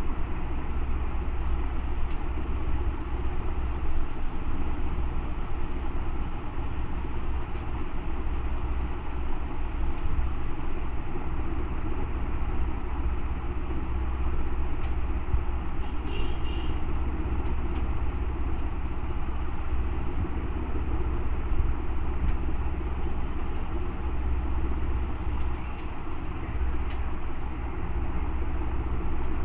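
Steady low rumble and hiss of background noise, with a few faint clicks scattered through it.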